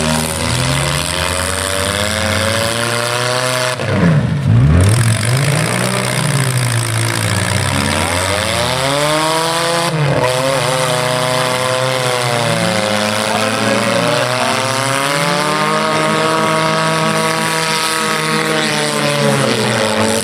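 Engines of several stock compact cars revving hard and unevenly, their pitches rising and falling over one another as the cars push and ram in deep mud. A sudden thump comes about four seconds in, and a sharp knock comes about ten seconds in.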